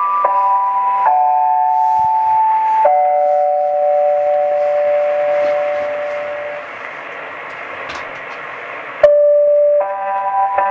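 Music received over medium-wave AM radio: held musical notes and chords changing every one to a few seconds, over steady hiss with occasional crackles. About two-thirds through, the notes fade and leave mostly hiss. Near the end a loud new note starts abruptly.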